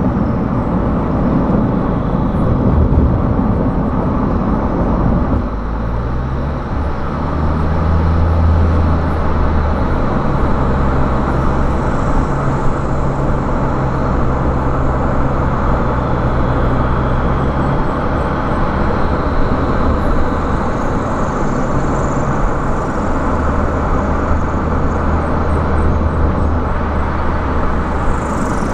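Car driving on a highway: steady engine hum and tyre road noise, with the engine note changing to a new steady pitch about five seconds in.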